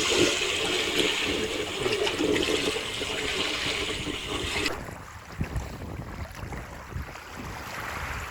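Steady rush of water and wind outdoors by the sea. About two-thirds of the way through it cuts abruptly to a quieter, low rumble.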